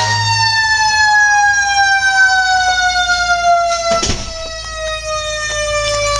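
A high whine with overtones, gliding slowly and steadily down in pitch as it winds down. There is a short knock about four seconds in.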